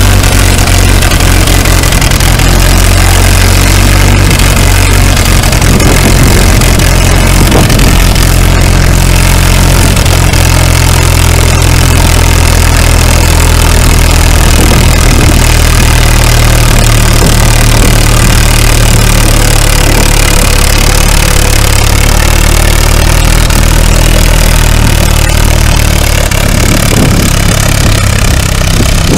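Vintage tractor engine running steadily under load as it drags a weight-transfer sled on a chain, then easing off about three seconds before the end when the pull stops.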